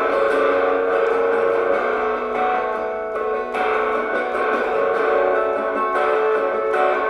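Electric guitar played through a small belt-clipped pocket amp, chords strummed and left ringing, with little bass.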